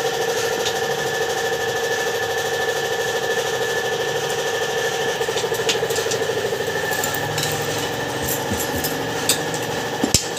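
A motor running steadily with a constant hum, and a few sharp clicks in the last couple of seconds.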